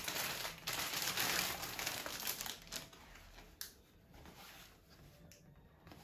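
Clear plastic polybag crinkling as a folded T-shirt is pulled out of it, loud for the first two to three seconds and then quieter, with one sharp tick about three and a half seconds in.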